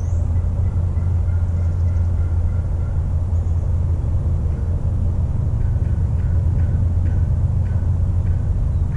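A steady, loud low rumble, with faint short chirps over it early on and again in the last few seconds.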